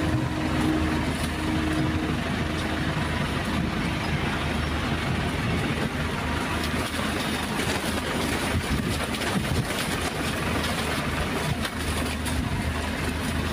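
Heavy diesel machinery, an excavator and dump trucks, running steadily: a continuous low engine drone under a broad rushing noise.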